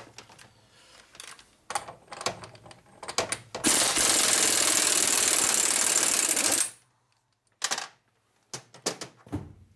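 Sharp clicks and knocks of tools and metal parts being handled, then a loud steady rushing noise for about three seconds in the middle, cutting off suddenly.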